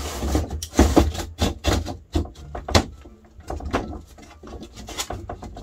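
Thin wooden back panel being fitted into a dresser's frame: a string of irregular wooden knocks as it is pushed and worked into place.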